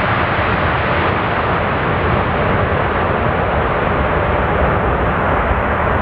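Boeing 747 freighter's four turbofan engines at takeoff power during the takeoff roll: a steady, loud rush of jet noise with a faint hum. The upper end slowly dulls as the aircraft moves away down the runway.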